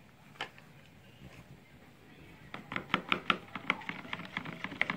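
Metal spoon stirring cornflour into a thick egg-and-flour batter, clicking quickly against the side of the bowl, several clicks a second, starting about halfway in; before that only one faint click.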